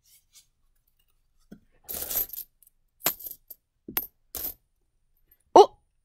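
Pennies being shaken out of a paper coin roll and spread by hand, clinking against each other in several short bursts, with one sharper, louder clink near the end.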